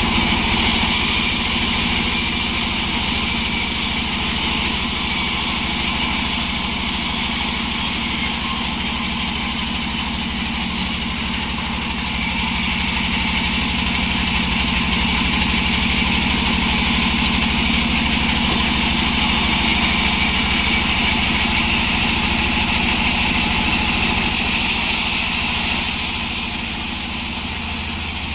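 Sawmill running steadily while sawing wood: a constant engine drone with a hiss on top, easing off slightly near the end.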